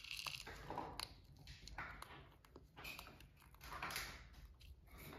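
Pet rat gnawing an edible wafer plate: faint, irregular crunching and nibbling, a spell of it about every second.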